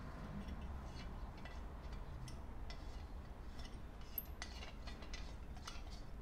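Faint, irregular metallic ticks and light scraping as a Naturehike mini folding stove is screwed by hand onto the threaded valve of a Kovea isobutane-propane gas canister, with a sharper click about four seconds in.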